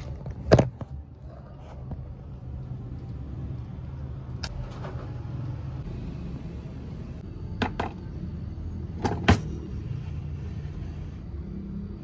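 Steady low background rumble, like room or distant traffic noise, with a few sharp clicks and knocks scattered through it, two of them close together near the end.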